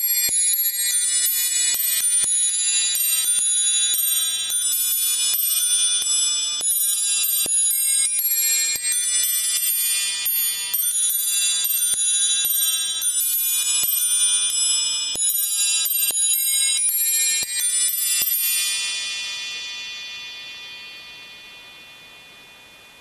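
Antique musical clock playing a tune on its nest of bells, brass hammers lifted by a pinned barrel striking quick, high notes. The tune stops with several seconds left and the last notes ring on and fade away.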